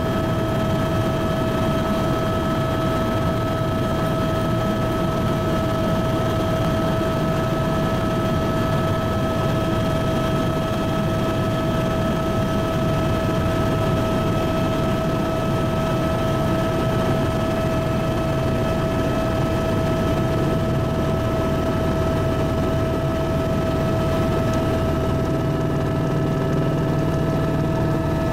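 Helicopter in flight: steady drone of the engine and rotor with a constant high whine over a low rumble. A lower hum joins in near the end.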